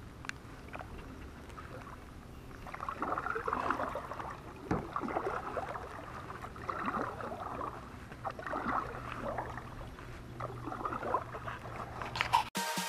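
Kayak paddle strokes, the blades dipping and splashing with water dripping off them, starting a couple of seconds in, with a single knock near the middle. Electronic music cuts in right at the end.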